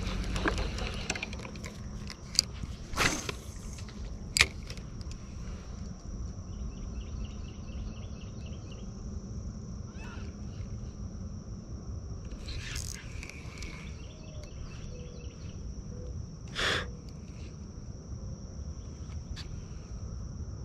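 Outdoor ambience by the water: a steady high-pitched insect drone with a couple of brief chirping trills, under a light low rumble. Boat motor noise stops about a second in, and a few sharp clicks and knocks come through, the loudest around three and four seconds in and another near seventeen seconds.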